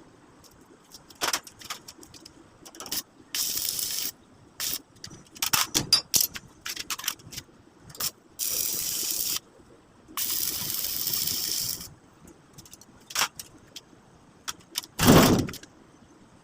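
Metal workshop sounds: scattered clanks and knocks of metal parts being handled, with three bursts of steady hissing one to two seconds long, and a louder knock near the end.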